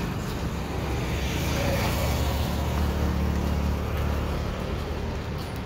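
Road traffic noise with a motor vehicle's low engine hum that swells through the middle and eases near the end.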